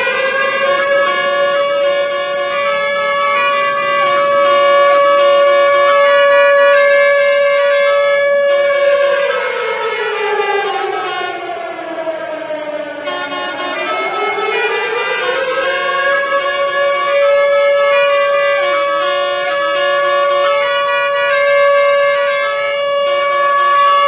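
Civil defense warning siren wailing: a steady tone held for several seconds, then falling in pitch about halfway through and rising back up to hold steady again.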